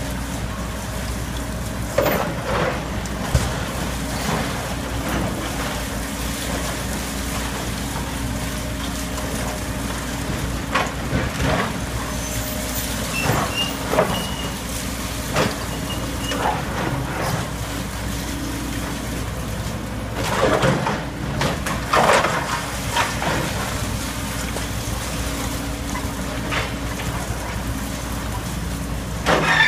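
Samsung crawler excavator's diesel engine running steadily while it demolishes a building, with intermittent crashes, clanks and scraping of metal and debris, the loudest cluster about two-thirds of the way through.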